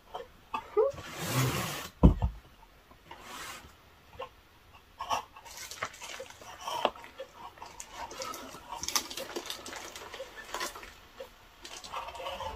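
Cardboard laptop box and plastic wrapping being handled: rustling, scraping and small knocks as the laptop in its plastic sleeve is taken out, with one thump about two seconds in.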